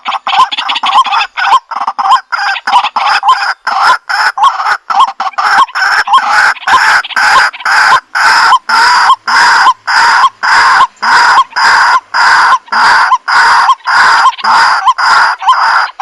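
White-breasted waterhen calling: a loud, rhythmic series of harsh 'kwak' notes. They start as quick, short notes and settle after a few seconds into longer calls, about two a second.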